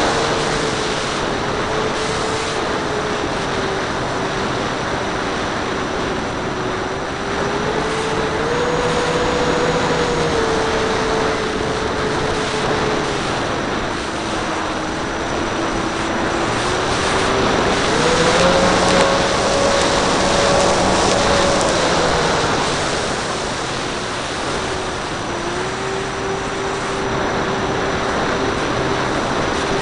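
Onboard sound of a Banana Hobby P-38 radio-controlled model plane in flight: the electric motors' whine rises and falls in pitch with the throttle, over a steady rush of wind across the camera. The pitch climbs about eight seconds in, dips around fourteen seconds, climbs highest around eighteen to twenty-two seconds, then settles lower.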